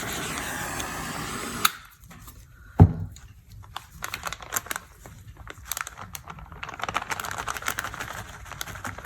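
A steady rushing noise cuts off with a click, followed by a single knock on the work table and then light, scattered clicks and taps of small objects being handled during resin work.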